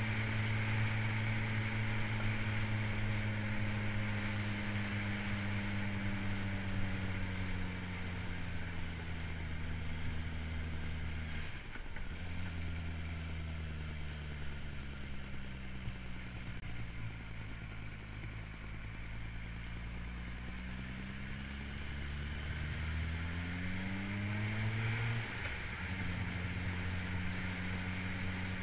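Engine of the vehicle carrying the camera, pulling along a road with wind rushing past. Its revs sink slowly as it eases off, with a short break a little before halfway. They climb again later and drop suddenly at a gear change near the end.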